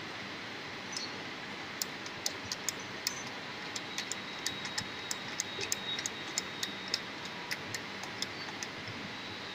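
Small metal parts of a roller burnishing tool clicking sharply as they are handled and fitted by hand, about two or three irregular clicks a second, over a steady hiss.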